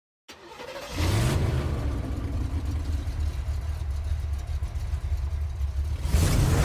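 A vehicle's low, steady rumble with hiss above it. It starts abruptly after a moment of silence, swells over the first second, and brightens near the end.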